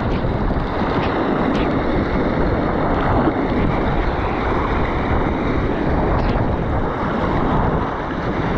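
Sea surf surging and foaming over rocks at the water's edge, with wind buffeting the microphone; a steady, dense rushing.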